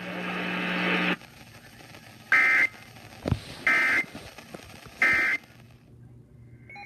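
Three short bursts of Emergency Alert System digital data tones, about 1.3 s apart: the end-of-message code that closes a weather warning broadcast. They follow about a second of radio hiss that stops abruptly.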